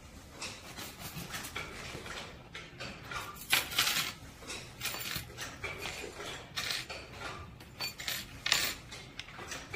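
Small metal snap-in mounting clips clinking and rattling against each other as they are handled by hand and dropped into a clear plastic bag: irregular short clinks, with the loudest rattles about halfway through and near the end.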